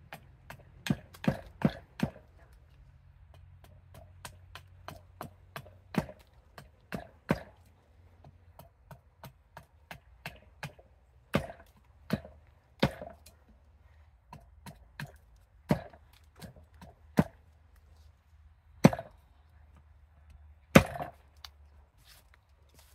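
An 860 g carving axe chopping into an ornamental cherry spoon blank set on end on a chopping block. It makes an irregular run of sharp wooden chops, many light taps between heavier strokes, with the hardest blows near the end.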